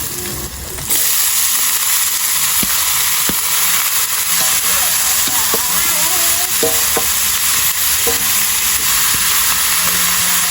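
Loud steady hiss that starts abruptly about a second in, with faint voices beneath.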